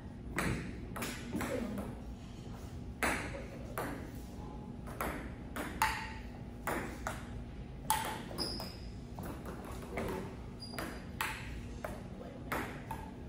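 A table-tennis rally: a ping-pong ball clicking sharply off the paddles and the Stiga table, in an irregular run of about one or two hits a second.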